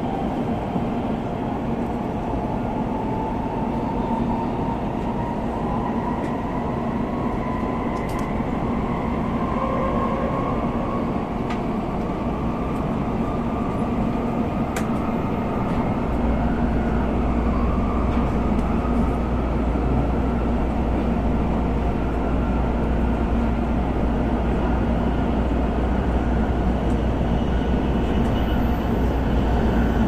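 Cabin noise inside an N700A Shinkansen car running at speed: a steady rumble of wheels on rail with a low hum. A faint whine slowly rises in pitch as the train gathers speed, and the low rumble gets louder about halfway through.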